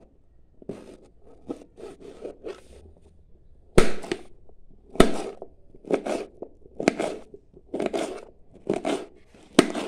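Serrated kitchen knife chopping sponge gourd into small cubes on a plastic chopping board. A run of crisp cuts, softer for the first few seconds, then firmer strokes about once a second, some ending in a sharp knock of the blade on the board.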